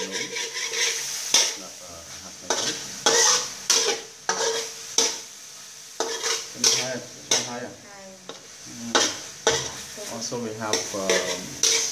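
Metal spatula scraping and knocking against a wok in quick, irregular strokes while stir-frying chopped pork and garlic, with a steady sizzle underneath.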